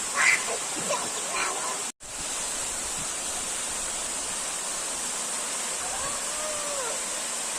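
Waterfall rushing in a steady hiss, with a few short high-pitched calls in the first two seconds and again near the end. The sound cuts out for an instant about two seconds in.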